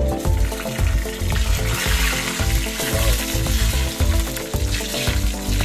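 Mustard seeds, cumin and dried red chillies sizzling in hot oil in a small kadai for a tempering, stirred with a steel spoon. Background music with a steady beat plays under it.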